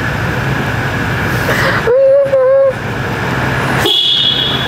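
Toyota LandCruiser 79 Series engine running as the vehicle is driven slowly out of the workshop. About two seconds in there is a loud held tone, broken once, and near the end a brief high squeal.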